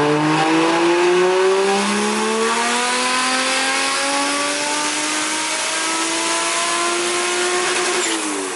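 Big single-turbo Toyota 1JZ inline-six making a full-throttle pull on a chassis dyno. The engine note climbs steadily through the revs, then falls off as the throttle is released near the end.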